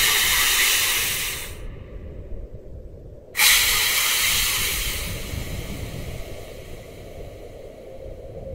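Two sudden bursts of loud hissing, the second about three seconds after the first, over a low rumble. The first cuts off after about a second and a half; the second fades out slowly over a few seconds.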